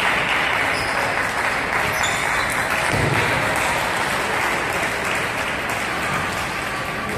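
Steady applause-like crowd noise, an even hiss of clapping and hall noise that neither builds nor stops.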